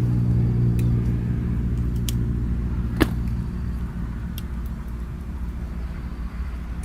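A motor vehicle's engine running with a steady low hum that fades away over the first few seconds, with one sharp click about three seconds in.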